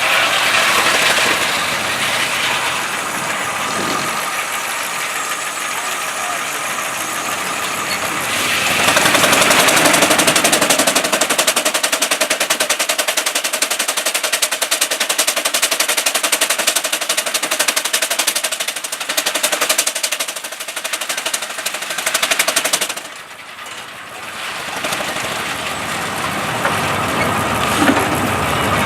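Half-scale Case steam traction engine driving a belt-powered circular sawmill: the engine exhausts in rapid, even beats. From about a third of the way in the sound grows louder and harsher with a steady whine as the saw works through a log, and it drops off sharply near the end.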